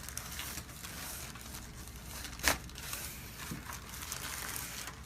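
Rustling and crinkling on a chiropractic treatment table as the patient shifts on it, with one sharp click about two and a half seconds in and a softer knock a second later.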